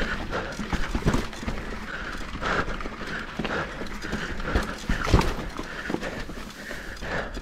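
Mountain bike clattering down a rocky dirt singletrack: irregular knocks and rattles from the tyres, suspension and drivetrain as it rolls over rocks and ruts. Heavier knocks come about a second in, around two and a half seconds, and the loudest about five seconds in.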